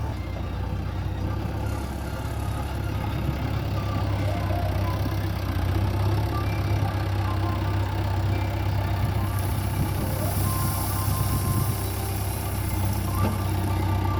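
JCB 3DX backhoe loader's diesel engine running steadily with a low drone. A hiss joins it for the last few seconds.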